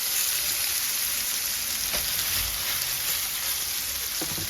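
Swai fish fillets sizzling in hot butter in a frying pan: a steady frying hiss.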